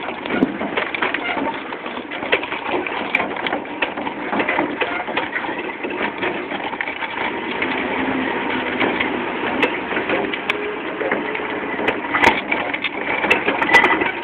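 Continuous crunching and rattling of a halftrack driving over rough ground, full of small clicks and knocks, with a few sharper knocks near the end.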